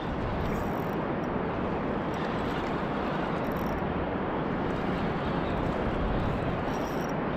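Steady outdoor background noise, an even hiss and low rumble with no distinct events.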